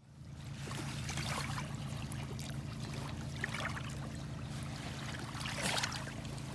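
Water at a lake shore trickling and lightly splashing, a few small splashes standing out, over a steady low hum. The sound starts abruptly at a cut.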